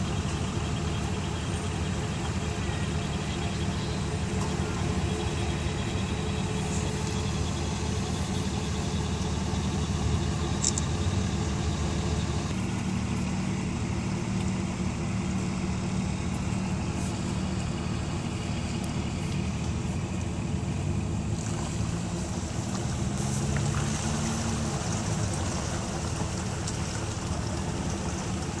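Car engine running with a steady low hum, heard from inside the cabin as the car moves slowly.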